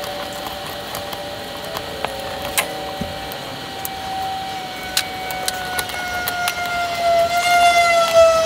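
Scattered sharp clicks and knocks of a sizing tool and metal transmission parts being handled, under a steady whine with several overtones that slowly falls in pitch and grows louder near the end.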